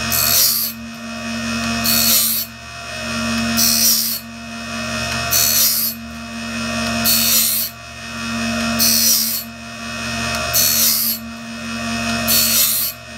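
Cook's Cat Claw band-saw blade sharpener running: its grinding wheel hisses against the band blade in short bursts about every 1.75 seconds, once per tooth as the blade is indexed, over the steady hum of the motor.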